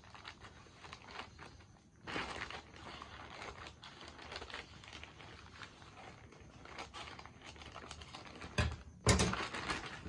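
Scissors cutting through a plastic courier mailer bag, the thin plastic crinkling with each cut. Near the end the bag is pulled open by hand and rustles loudly.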